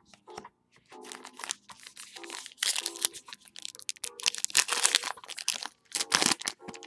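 The wrapper of a 2021 Topps Allen and Ginter retail card pack being crinkled and torn open by hand: a run of irregular crinkles and rips, loudest in the middle.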